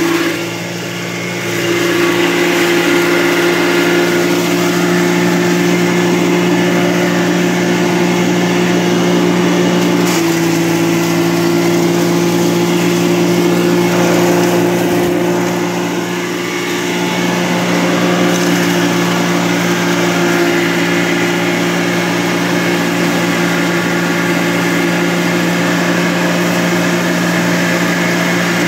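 Forage chopper mill running with a steady motor hum while corn stalks and alfalfa are fed into its chute. The sound dips briefly about a second in and again about halfway through.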